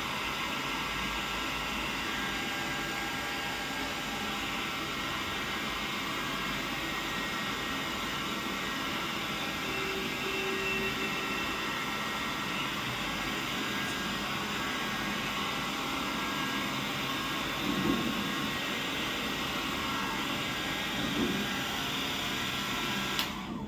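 Handheld hair dryer running steadily, a rush of blown air over a motor hum, then switched off suddenly near the end.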